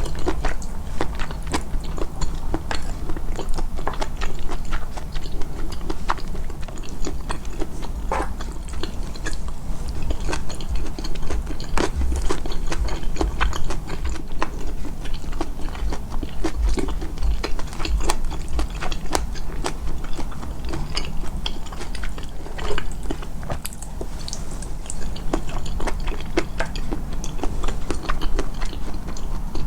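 Close-miked, amplified chewing and biting of food: a continuous run of small crunching and clicking mouth sounds.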